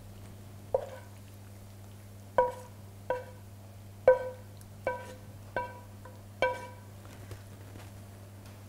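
Wooden spatula knocking against a metal frying pan seven times at uneven spacing while pasta is scraped out of it. Each knock is sharp and rings briefly at the same pitch. A steady low electrical hum runs underneath.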